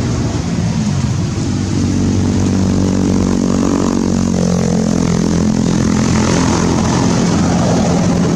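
A steady engine drone, running evenly with a slight waver in pitch partway through.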